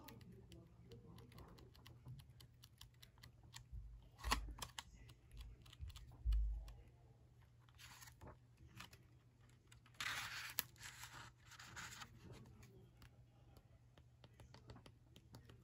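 Pages of a paper planner being turned by hand: soft paper rustles and small ticks, a couple of low handling bumps about four and six seconds in, and a quick riffle of pages about ten seconds in.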